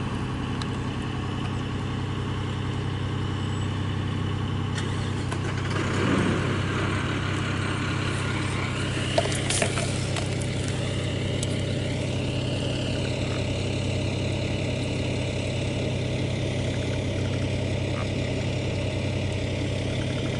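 A steady low engine hum, like a motor idling, runs throughout without change. There is a brief rustle about six seconds in and a couple of faint clicks a few seconds later.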